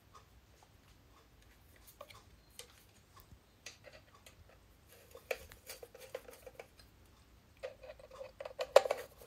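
Long screwdriver turning and tightening the screws of a polished motorcycle sprocket cover on a Kawasaki Z1 engine: a scatter of small metallic clicks and ticks, busier about five seconds in and again near the end, with one sharp click near the end.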